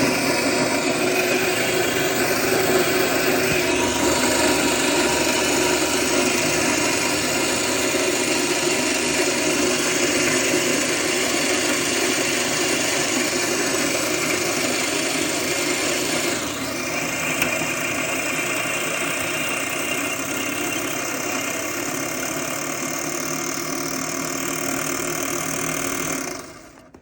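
Bunn LPG-2E commercial coffee grinder's motor and burrs running steadily while grinding coffee beans. The sound gets slightly quieter about two-thirds of the way through, and the grinder stops abruptly near the end.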